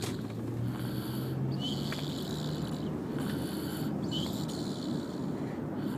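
Snoring: slow, even breaths, each one a low rumble with a hissy edge, repeating about every two and a half seconds.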